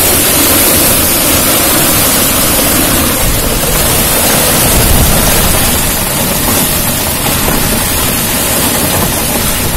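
Hailstorm: large hailstones and heavy rain coming down hard, a loud, steady roar with no letup.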